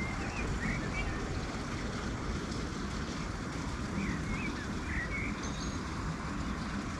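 Wind buffeting the microphone, a steady low rushing, with a few short, high, wavering chirps just after the start and again about four seconds in.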